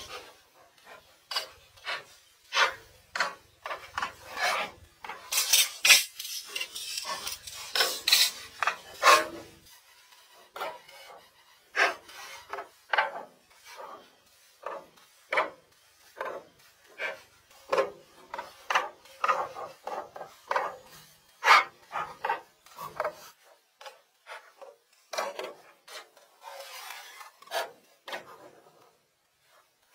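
Loose wooden planks being handled on a plank floor: irregular knocks and clatters as boards are picked up, stacked and set down, with a stretch of wood scraping and rubbing on wood about five to ten seconds in.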